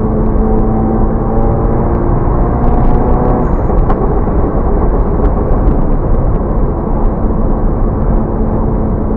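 Exhaust of an MK7 Volkswagen GTI's turbocharged 2.0-litre four-cylinder, through an aftermarket 5150 Racing exhaust, running loud under way. Its engine note shifts in pitch during the first few seconds, then holds steady over a heavy low rumble.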